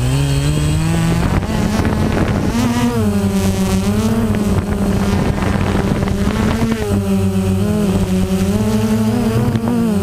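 Small camera drone's propellers whining as it climbs away: the pitch rises over the first second or so, then holds nearly steady with slight wavers as it flies.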